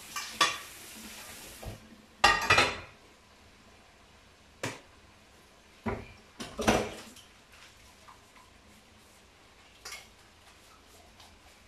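Dishes being washed by hand in a stainless steel sink: the tap runs briefly and is turned off about two seconds in, then plates and pans clatter and knock against the sink and each other several times.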